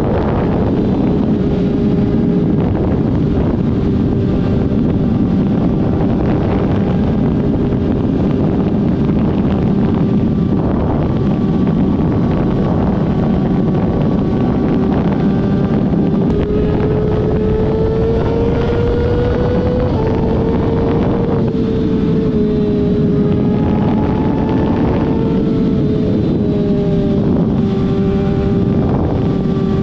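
Car engines running, one held at a steady pitch that climbs slightly about two-thirds of the way through and then settles back.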